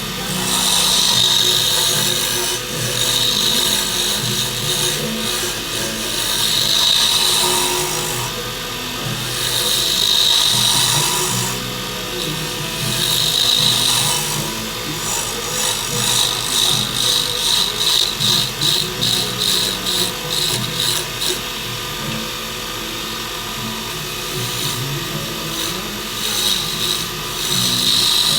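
Wood lathe spinning a dyed, stabilized burl pen blank while a turning tool cuts it down. The cutting hiss swells and fades pass after pass every couple of seconds, with a quicker run of short strokes around the middle.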